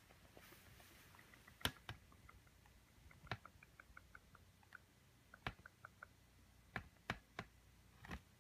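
Faint sharp clicks and light taps, about eight of them scattered irregularly, with runs of softer little ticks between, over quiet room tone.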